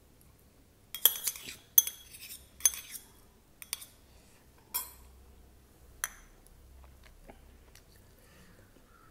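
A metal spoon clinking and scraping against a small stainless-steel bowl while curd is knocked out of it: about six ringing metallic clinks roughly a second apart, the first three loudest, the rest fainter.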